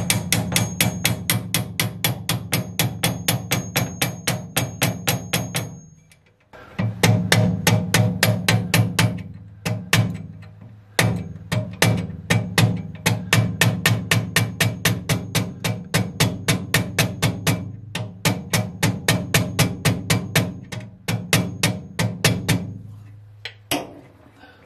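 Background music with a fast, steady drum beat, about five or six strikes a second, that pauses briefly a few times.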